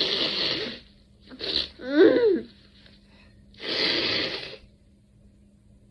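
A person sneezing from a nasal swab: two harsh, wheezy breaths of about a second each, one at the start and one near four seconds in, with a short burst and then a loud voiced sneeze about two seconds in.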